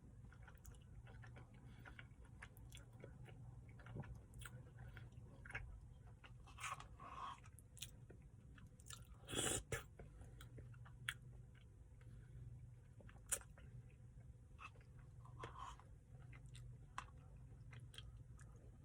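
Faint chewing and biting as a person eats a chocolate brownie Blizzard ice cream, with scattered small clicks and one louder brief noise about nine and a half seconds in.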